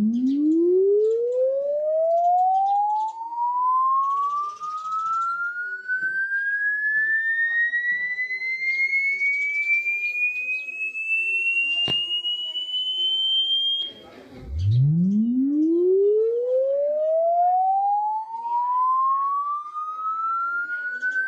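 A pure electronic tone sweeping steadily upward in pitch from a low hum to a high whistle over about fourteen seconds, then breaking off and starting a new rising sweep from the bottom about fourteen seconds in.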